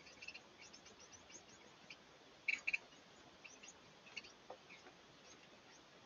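Carolina wren giving short, high chip notes scattered throughout, with a louder double chip about two and a half seconds in.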